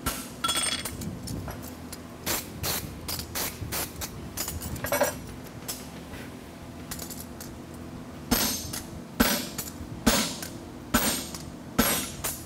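Hand hammer striking a hot steel horseshoe on an anvil while shaping it: a run of quick, lighter taps, then five heavier blows about a second apart near the end, some with a short metallic ring.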